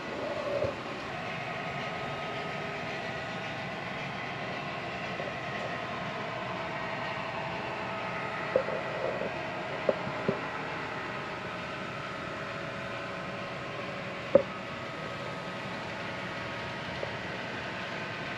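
HO scale model train running on the layout: a steady whirring hum of the running train, with a few short clicks and knocks in the middle.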